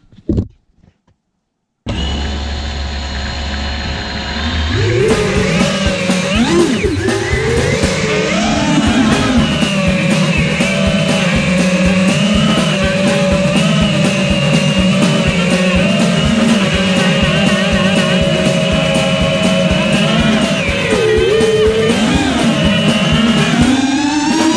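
FPV quadcopter's brushless motors whining, starting about two seconds in, the pitch holding steady in stretches and swooping up and down with throttle changes.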